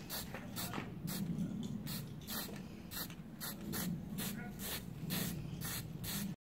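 Short hissing sprays from an aerosol paint can, about three quick bursts a second, over a low steady hum. The sound stops abruptly near the end.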